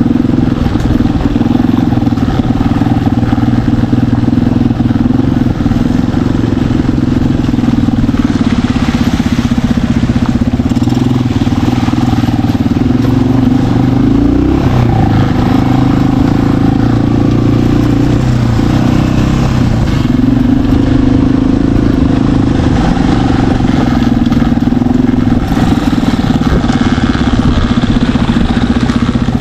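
Dirt bike engine running continuously at moderate revs, its pitch rising and falling a little as the throttle is worked.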